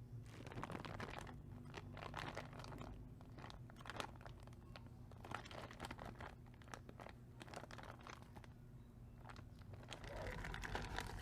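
Irregular clicks, clinks and scrapes of hand tools and small metal parts being handled during motorcycle clutch disassembly.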